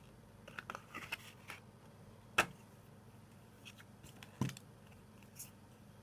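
CD and its packaging being handled: a run of small clicks and rustles, then two sharper knocks about two and a half and four and a half seconds in, and a lighter click near the end.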